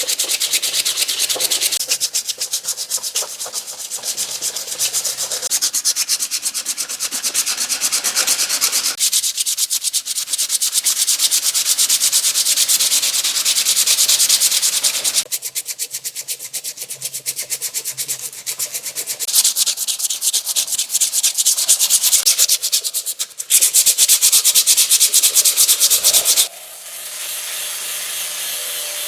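Rapid abrasive scrubbing or sanding of rusty metal pliers by hand, in fast back-and-forth strokes, to remove rust. Near the end the scrubbing stops and a quieter, steady sound with a low hum takes over.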